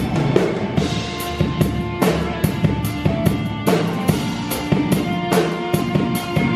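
Band playing music with a drum kit: bass drum and snare keep a steady beat under held chords.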